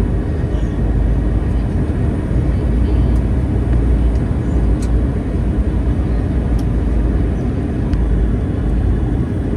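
Steady low rumble of an Airbus A321's engines and airframe, heard from inside the passenger cabin.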